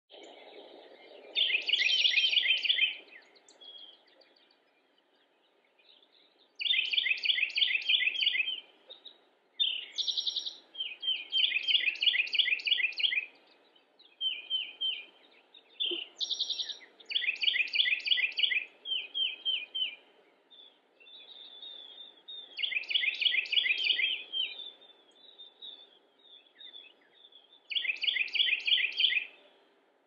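Carolina wren singing: loud phrases of quickly repeated rolling notes, each about two seconds long, given again every few seconds.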